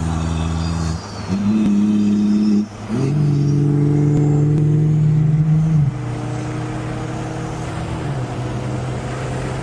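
Car engine droning at a steady pitch, stepping up and down in pitch a few times in the first six seconds, then holding steady.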